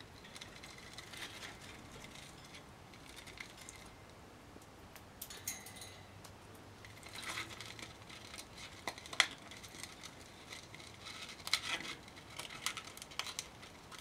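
A parrotlet's beak picking, nibbling and crunching at a wooden foraging kabob: scattered small clicks, scratches and crackles, growing busier after about five seconds, with one sharp click in the middle.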